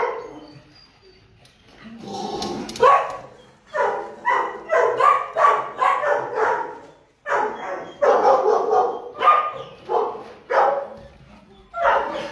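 A dog barking repeatedly in quick runs of short barks, starting about two seconds in, with a brief pause about seven seconds in.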